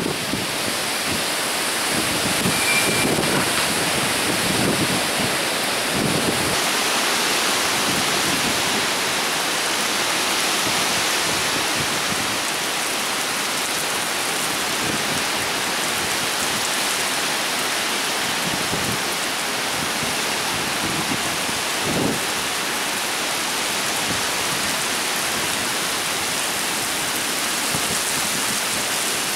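Torrential thunderstorm rain falling in a steady, dense hiss. Low rumbling swells come in the first few seconds and once more about two-thirds of the way through.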